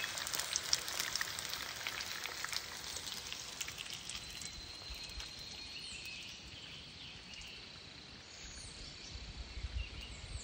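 Eggs frying in bacon grease in a cast-iron skillet, crackling and spitting; the crackle thins out over the first few seconds. After that comes quiet outdoor ambience with a steady high insect drone and a few high chirps near the end.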